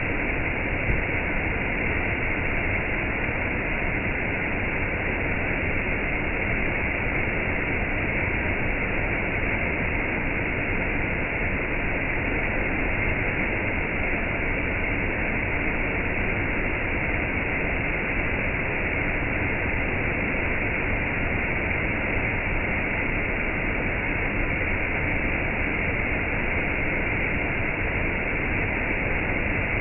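Gentle rain and a waterfall: a steady, even rush of water with no separate drops standing out.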